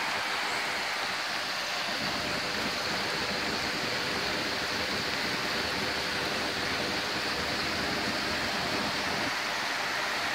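Flooded creek, swollen by several days of heavy rain, rushing over rocks in a steady, even rush of water.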